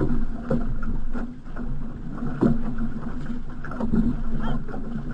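Water rushing and splashing along the hull of a paddled outrigger canoe in choppy water, with irregular splashes about once a second as the paddles dig in. Wind rumbles on the microphone underneath.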